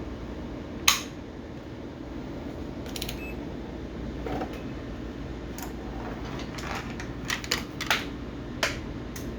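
Scattered sharp clicks and taps over a steady low hum: one loud click about a second in, a couple more in the middle, and a quick cluster of clicks near the end.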